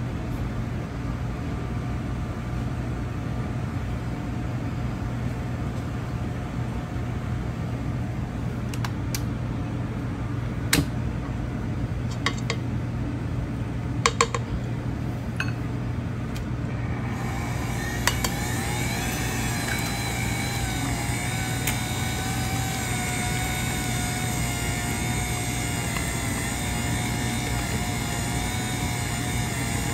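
Steady background hum with a few sharp clicks and knocks, then about 17 seconds in a Cuisinart stand mixer's motor starts up with a slightly wavering whine as its paddle beats one more egg into thick zeppole dough.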